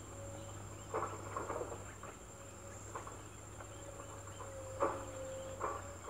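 A steady thin high insect buzz, with a handful of soft rustling taps, the clearest about a second in and just before the five-second mark.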